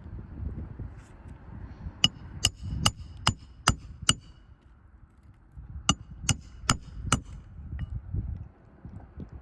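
Hammer blows on metal, each with a short ring: a run of six quick strikes, a pause, then four more.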